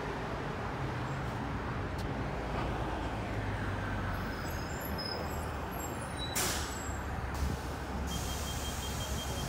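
Street traffic noise: a steady low rumble of passing vehicles, with a short burst of hiss about six seconds in.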